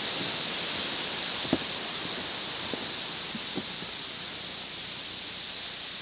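Steady rushing of the river and waterfall below, easing slightly, with a few soft footsteps on the bridge deck about a second apart.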